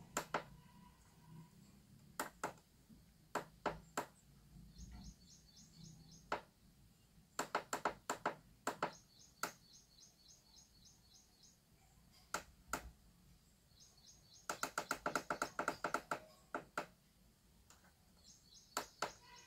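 Faint clicking of a digital clock's setting buttons, pressed singly at intervals and then in a fast run of presses past the middle, with short high chirps in between.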